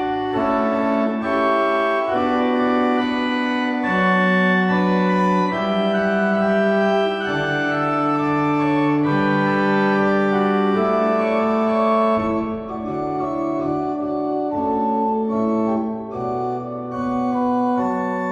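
Church organ playing slow, sustained chords over a moving bass line, changing chord about every second.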